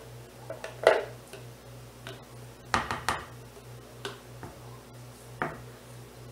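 A handful of short knocks and taps of a utensil against plastic containers while soap batter is worked in the pot, with a quick cluster of them near the middle. A faint steady low hum runs underneath.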